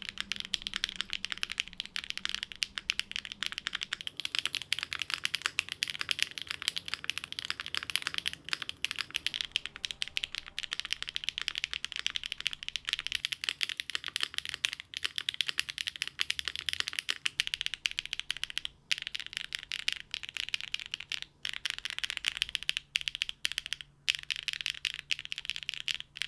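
Fast continuous typing on a Neo75 custom mechanical keyboard with HMX Swift linear switches on an aluminium plate, only plate foam and GMK Bento keycaps, giving a light, bright, clacky sound. The typing breaks off briefly a few times in the second half.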